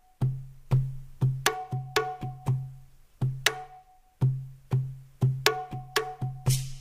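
Background music with a percussion beat: short drum and wood-block hits, about two a second with some quicker runs.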